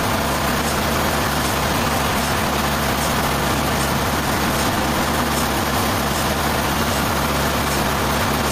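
Sawmill machinery running steadily: an even engine drone with faint ticks repeating about every two-thirds of a second.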